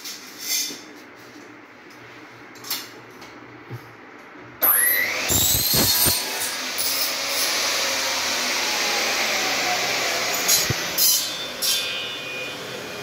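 An electric motor switched on about four and a half seconds in, its whine rising quickly as it spins up, then running steadily and loudly; a few light knocks before it starts.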